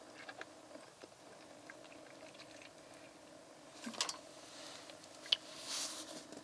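Gloved hands handling a plastic quart bottle of motor oil: light rubbing and small clicks, a sharp tap a little after five seconds in, over a faint steady hum.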